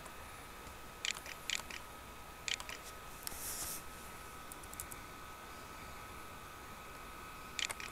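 Faint clicking at a computer as text is typed: a quick run of clicks about a second in and a pair near two and a half seconds, then only a faint steady background whine.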